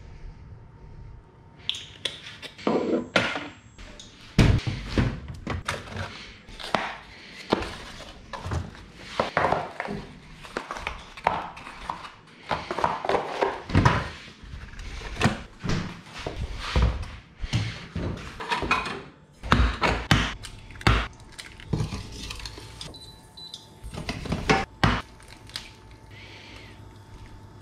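Kitchen handling sounds: a long, irregular string of knocks, clatter and thunks as jars, a door and utensils are moved about, with eggs being cracked near the end.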